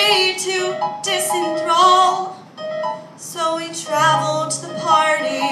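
A woman singing a song to piano-sounding accompaniment from a Korg Triton electronic keyboard, with a wavering vibrato on some held notes.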